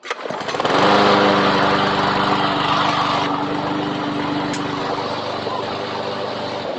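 PowerSmart DV86215 mower's 170 cc overhead-valve engine starting up on its first, primed cold start and catching at once, then running steadily at full speed.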